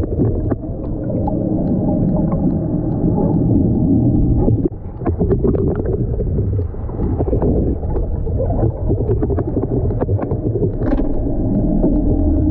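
Underwater sound from a camera held in the sea: a steady low rumble and hum of the fishing boat's engines, with bubbling as the camera goes in and scattered clicks and crackles. The level dips briefly a little over a third of the way through.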